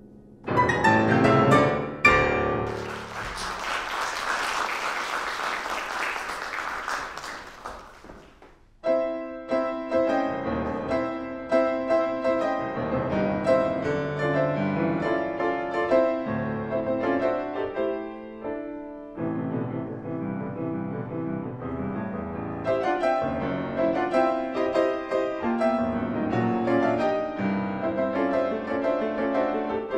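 Grand piano: a piece ends with loud closing chords in the first two seconds, followed by applause that fades out over about six seconds. Around nine seconds in, a new piece begins on grand piano, with many quick notes and chords.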